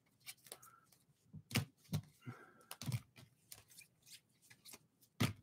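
Rigid plastic card holders (top loaders) clicking and sliding against one another as a stack of baseball cards is shuffled through by hand: light, irregular clicks.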